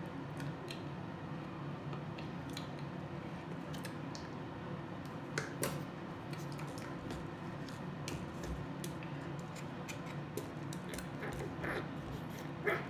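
Clicks of a plastic hand-soap pump bottle being pressed, with a louder pair of clicks about five and a half seconds in, over a steady low hum.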